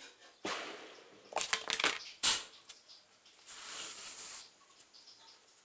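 A coin dropped into a homemade cardboard coin box, which springs open as its inner-tube-rubber hinges pull the cardboard panels flat: a scatter of light clacks and knocks, the sharpest just after two seconds, then a brief rustle of cardboard near the end.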